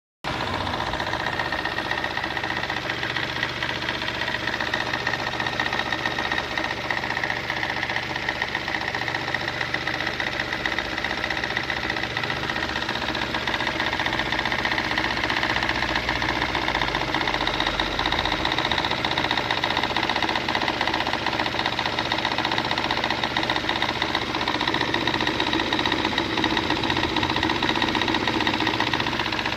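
Mazda 626 engine running steadily with a fast, even rattling noise over the engine sound, suspected to come from a bad timing belt tensioner or tensioner spring.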